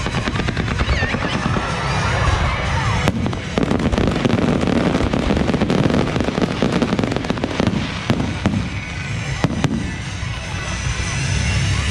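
Fireworks display: many shells bursting in a dense crackling and popping, thickest in the middle, over a low rumble, with music playing underneath.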